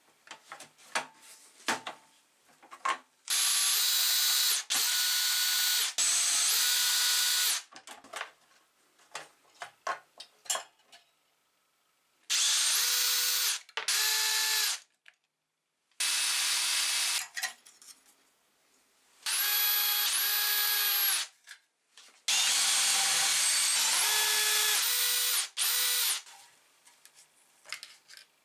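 Bosch cordless drill/driver running in about ten short spurts of a second or two each, its motor whine rising at the start of each, as it backs bolts out of a Briggs & Stratton engine. Small clicks and rattles of metal parts being handled come between the spurts.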